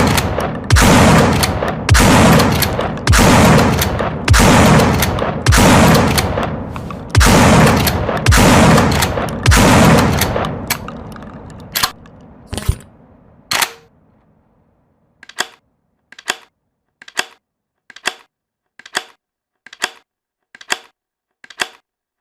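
Remington 870 pump-action shotgun sound effect: about ten loud shots roughly a second apart, each with a long echoing tail. Then three sharper, smaller cracks, and after a short pause a run of about eight lighter clicks, evenly spaced under a second apart.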